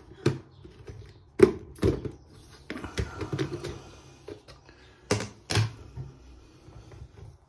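Clear plastic enclosure's snap-on lid being unclipped and lifted off, giving a series of sharp plastic clicks and knocks at irregular intervals with light handling rustle between them. The loudest clicks come about a second and a half in and again around five seconds in.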